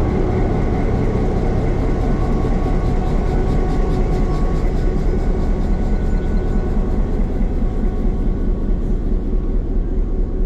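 Diesel locomotive engine idling: a steady low rumble with a constant hum over it.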